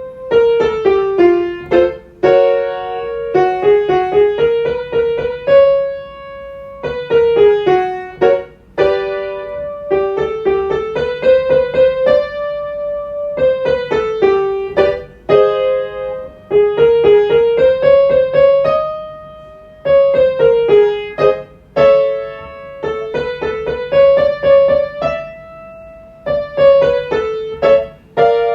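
Piano playing quick five-note scale runs up and down, repeated as a vocal warm-up exercise, with each new run reaching a little higher in pitch.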